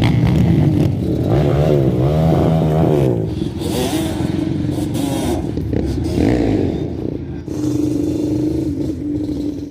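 A motor vehicle's engine revving, its pitch rising and falling several times, with scraping and clattering noise throughout. The sound cuts in and cuts off abruptly.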